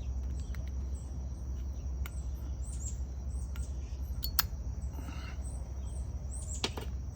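Outdoor ambience: a bird chirping over and over, high-pitched, above a steady insect drone and a low rumble, with a few sharp clicks.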